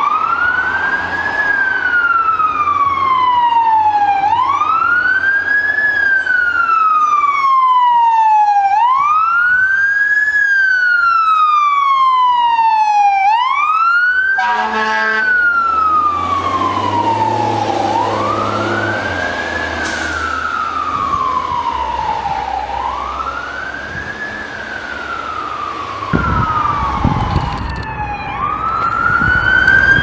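A fire engine's electronic siren on a slow wail. Each cycle rises for about a second and a half and falls for about three, repeating about every four and a half seconds. A deeper steady tone joins for a few seconds around the middle.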